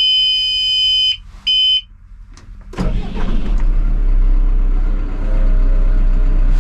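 The cab's warning buzzer sounds steadily and cuts off about a second in, then beeps once more briefly. The CAT backhoe loader's diesel engine is then started, catching a little under three seconds in and settling into a steady idle.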